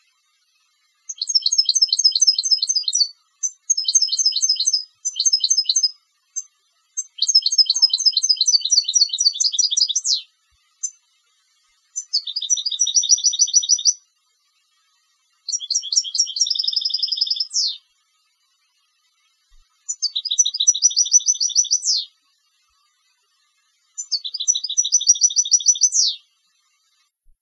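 Competition-bred European goldfinch singing: about eight high, rapid trilled phrases of one to three seconds each, separated by short pauses, several ending in a quick falling slur.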